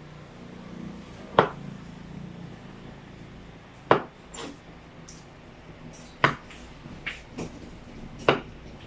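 Kitchen utensil knocking on a hard surface in the kitchen: about seven sharp, separate knocks at irregular intervals, as in cutting food into small pieces.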